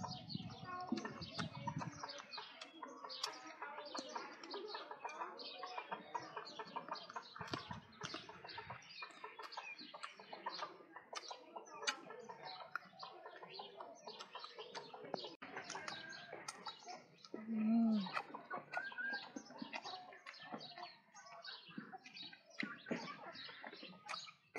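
Chickens clucking and small birds chirping, a busy run of short chirps and clicks throughout, with one brief, louder low tone that falls at its end about eighteen seconds in.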